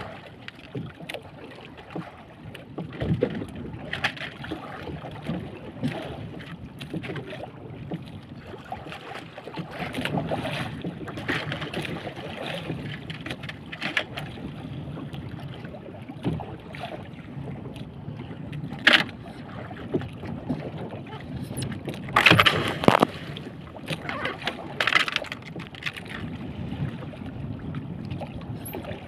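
Small fishing boat at sea: wind on the microphone and water against the hull, with scattered sharp knocks and clatters throughout. A cluster of louder knocks comes about two-thirds of the way through.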